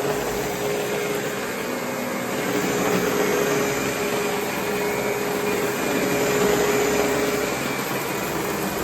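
2011 Oreck XL Professional Grade commercial upright vacuum running steadily: a constant rush of air with a steady whine from the motor, running well.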